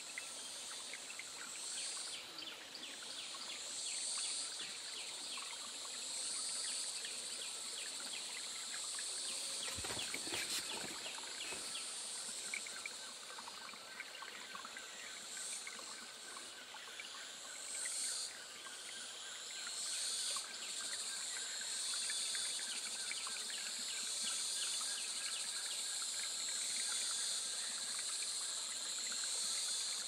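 A high-pitched insect chorus drones on, swelling and fading every couple of seconds. A short burst of low noise comes about ten seconds in.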